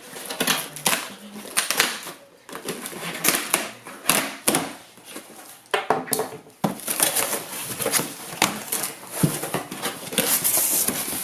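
An Amazon parcel being opened and the boxed computer parts inside handled: an irregular run of clicks, knocks and cardboard and plastic rustling, with a burst of rustling near the end.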